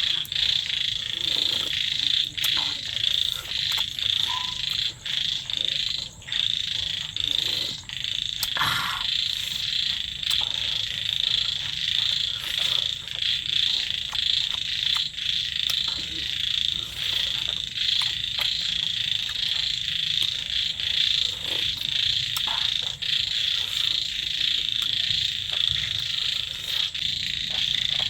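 A steady chorus of calling frogs, a dense high trilling that does not let up, with scattered faint clicks over it.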